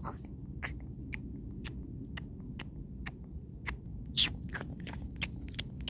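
Pretend eating noises made by mouth: quick chomping clicks and smacks, two or three a second, with a louder one about four seconds in, over a steady low rumble.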